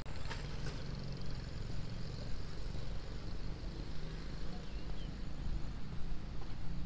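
Outdoor ambience along a quiet road: a steady low rumble, with a few faint high bird chirps about five seconds in.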